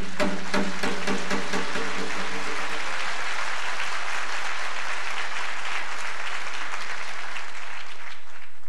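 Audience applauding at the end of a performance: the applause swells over the first few seconds and holds steady. The last notes of the music die away in the first two seconds.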